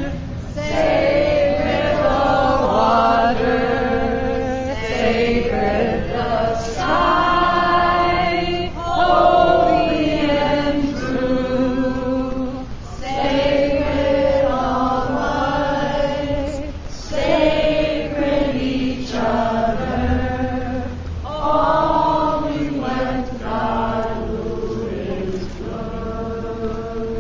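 A group of men and women singing a slow song together in unison, with long held notes and short breaks between phrases.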